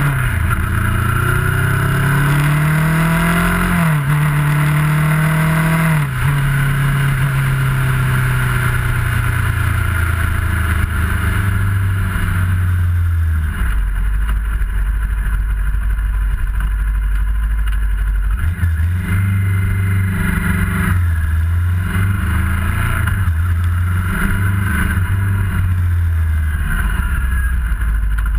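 Kawasaki ER-6f's 649 cc parallel-twin engine under way: the revs climb, drop sharply about 4 seconds in, climb again and drop near 6 seconds (gear changes), then wind down slowly to a low steady note before picking up again about two-thirds through. Wind rush on the microphone runs under it, strongest while the bike is at speed early on.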